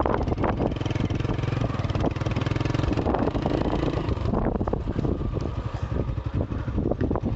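Honda CB125 motorcycle engine running steadily while the bike is ridden.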